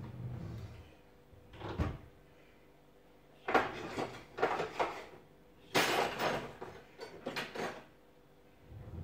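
Kitchen drawer pulled open and metal cutlery rattling as a hand rummages through it, in several bursts of clatter, the loudest in the second half.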